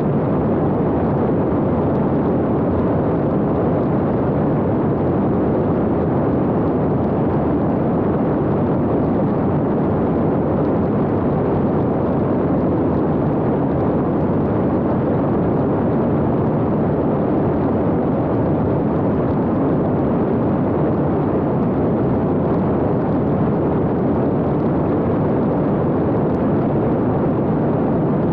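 Steady rush of airflow and propeller noise on board an X-UAV Talon fixed-wing drone in cruise flight, picked up by its onboard camera's microphone. An even, unchanging rushing sound with no distinct motor tone.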